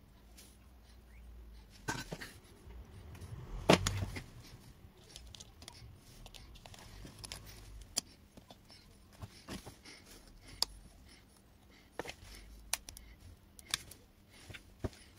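Scattered sharp clicks and taps with some scraping as a metal tool and fingers work over a washing machine's electronic control board. The loudest knock comes a few seconds in.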